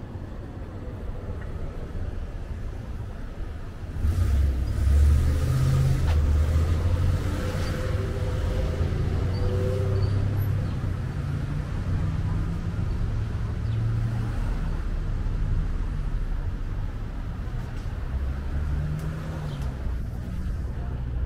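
Road traffic on a town street: cars driving past, their low engine and tyre rumble getting louder about four seconds in and staying steady after that.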